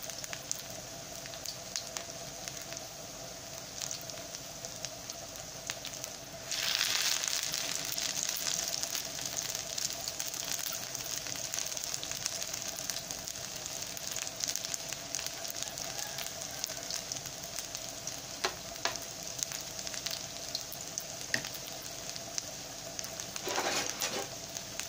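Egg-battered huazontle patties sizzling in hot vegetable oil in a nonstick skillet, with scattered pops. The sizzle jumps louder about a quarter of the way in, as another spoonful of the batter goes into the oil.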